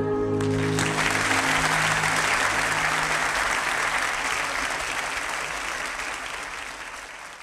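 Audience applause breaking out about half a second in while the song's last held chord dies away, then fading out toward the end.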